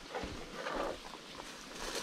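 Footsteps on a dirt trail covered in dry fallen leaves, a few uneven steps with the leaves rustling and crackling underfoot.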